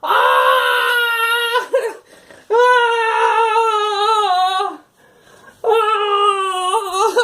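A person wailing in three long, drawn-out, high-pitched cries, each held for about two seconds with short breaks between.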